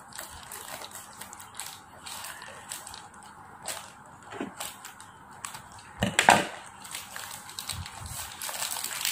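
Plastic shrink wrap on a boxed puzzle cube crinkling and crackling as it is cut with scissors and peeled away by hand, with one louder crackle about six seconds in.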